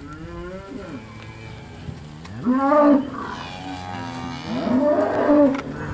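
Steers mooing: a call at the start, a louder one about two and a half seconds in, and another near the end.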